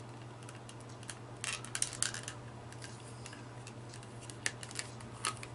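Light clicks and taps of a collectible Wonder Woman figure being handled and pushed at its display stand. There is a quick cluster of clicks about a second and a half in and a few more near the end.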